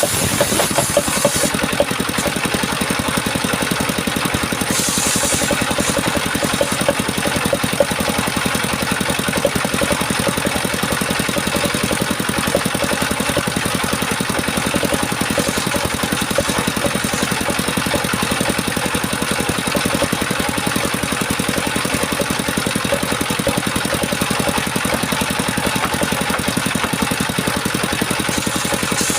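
Engine driving a homemade circular-saw sawmill, running steadily with a fast, even pulse.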